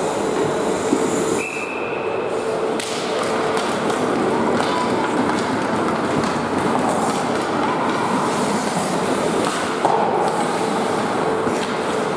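Youth ice hockey play: a steady scrape of skate blades on the ice with scattered clacks of sticks and puck, in the echoing noise of an indoor rink.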